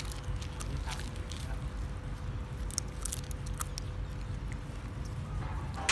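Black puppy chewing and biting on a dry stick, making scattered small clicks and crunches, with grass rustling under it.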